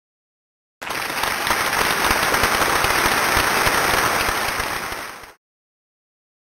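Dense crackling noise made of many fine, rapid pops, starting about a second in and running for about four and a half seconds before fading out.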